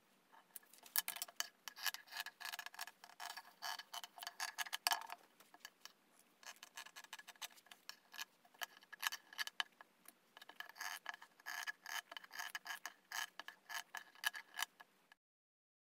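Scissors snipping through fabric: a quick, uneven run of crisp clicks, with a short pause about five seconds in. The sound cuts off abruptly just before the end.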